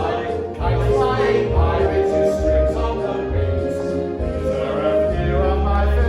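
A song with several voices singing together over instrumental accompaniment with a strong bass.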